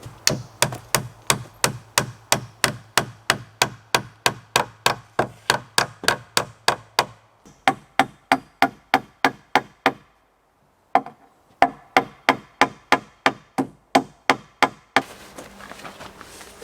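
A hand hammer striking wood in quick, evenly spaced blows, about three a second. The blows break off for a moment of silence past the middle, resume for a few seconds, then stop.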